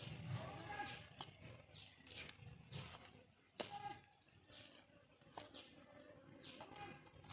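Birds calling with short chirps that fall in pitch, many times over, with a few sharp clicks as a knife cuts chicken on a metal tray.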